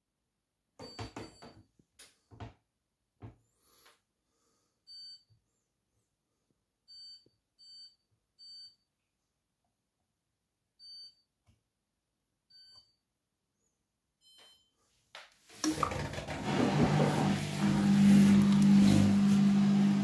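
Hoover front-loading washing machine: a few clicks, then about seven short beeps from its control-panel buttons as the programme is set. About three-quarters of the way through, the machine starts its prewash with a loud steady rushing sound over a steady low hum.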